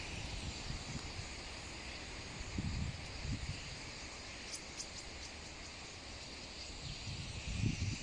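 Massed high chatter of a large starling flock, a steady hiss-like din with a few clearer calls about halfway through. Wind buffets the microphone in low rumbles twice, the second near the end.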